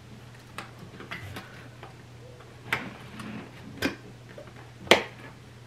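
Fingers prying open the tucked lid of a small cardboard box: a handful of irregular sharp clicks and taps of card, the loudest a little before the end.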